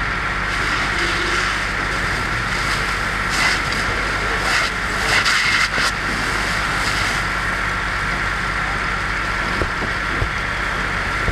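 Steady engine drone with a constant high whine, typical of a fire engine running its pump, under the hiss of a fire hose stream spraying burning debris. The hiss surges louder briefly a few times around the middle.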